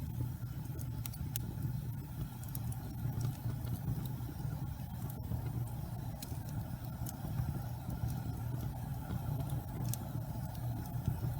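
Wood fire burning in a fireplace: a steady low rumble with scattered sharp crackles and pops at irregular intervals.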